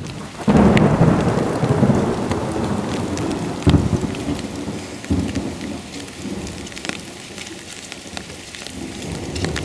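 Thunder rumbling over steady rain: a heavy low roll swells about half a second in, a second swell comes near four seconds, and the rumble slowly dies away under the hiss of the rain.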